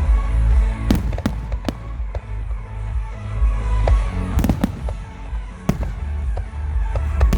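Aerial fireworks going off: a steady low booming with sharp bangs about a second in, a cluster near the middle and more later on. Music plays along underneath.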